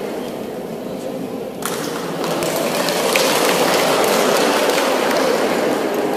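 Audience applauding, the clapping softer at first and then swelling again about a second and a half in.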